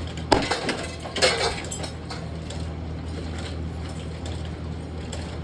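Hard strikes on a Harbor Breeze Barnstaple Bay ceiling fan as it is smashed: a sharp clank about a third of a second in, then a quick cluster of clattering hits just over a second in. A steady low hum runs underneath.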